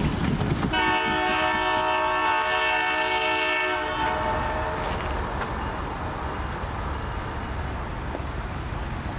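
Air horn of a Canadian Pacific GP20C-ECO diesel locomotive sounding one long blast of about three seconds, a chord of several tones held steady, starting about a second in. After it cuts off, the train's steady low rumble carries on.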